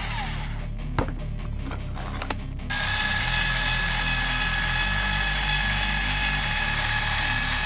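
Makita cordless caulk gun's electric motor driving the plunger to dispense caulk, a steady whine that starts about three seconds in, after two sharp clicks. Background music plays throughout.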